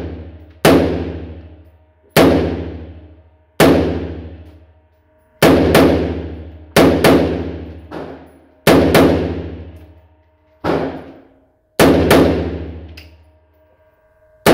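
AR-15-style rifle fired about a dozen times at a steady pace, single shots and quick doubles about a second or two apart, each crack ringing out in the reverberant indoor range.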